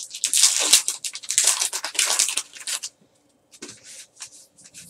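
Hands tearing open an Upper Deck Goodwin Champions trading card pack, its wrapper rustling and crinkling loudly for about the first three seconds. After that it goes much quieter, with a few faint ticks as the cards are handled.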